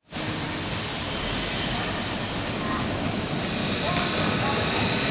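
A train running by on the rails with a steady rumble. A high wheel squeal comes in about three and a half seconds in, and the sound grows louder from then on.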